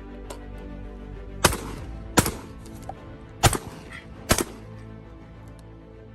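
Four shotgun shots in irregular succession, each sharp crack trailing off in a brief echo, over steady background music.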